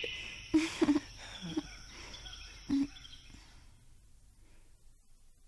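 Outdoor ambience of insects chirring with a few short bird calls, fading away over the first three seconds and leaving near silence.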